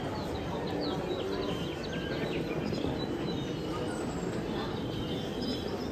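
Indoor ambience of a busy department store atrium: a steady murmur of shoppers with frequent short, high chirps scattered throughout.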